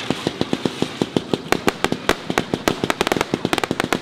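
Fireworks firing in quick succession: an even run of sharp pops, about eight a second, turning into denser, brighter crackling about a second and a half in.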